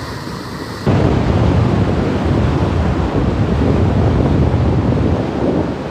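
Fast-flowing floodwater rushing in a heavy, steady wash, with wind buffeting the microphone. It gets suddenly louder about a second in.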